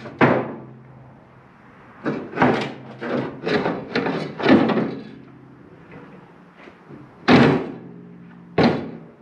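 Metal clunks and knocks from work inside a site dumper's footwell, a run of them in the first half as a part is forced loose, then two louder bangs near the end.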